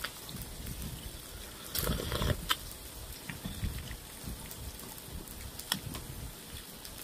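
A person eating: chewing and mouth sounds, a short rush of noise about two seconds in, and sharp clicks of utensils against a dish, twice.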